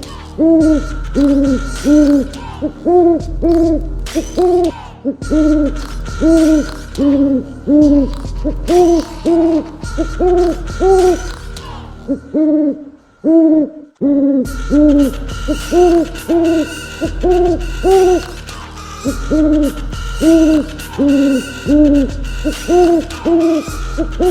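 Owl hooting: long runs of short, arched hoots, about two a second, with a pause of a second or so about halfway through.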